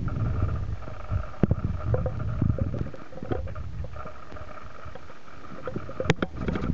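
Handling noise from a handheld camera: irregular low rumbling and rubbing with a few sharp clicks, the sharpest about a second and a half in and near the end, over a faint steady whine.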